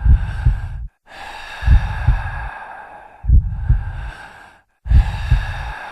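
Heavy, strained breathing with a low double thump, like a heartbeat, recurring about every second and a half. The sound cuts out briefly twice.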